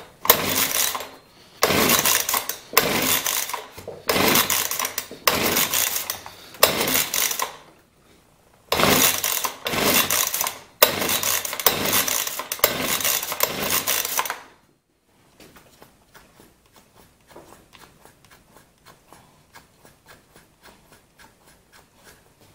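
Husqvarna 125B leaf blower's recoil starter pulled over and over, about a dozen quick pulls in two runs with a short pause about eight seconds in, the two-stroke engine cranking without catching: the freshly rebuilt carburetor has not yet filled with fuel. Faint quick ticking follows once the pulling stops.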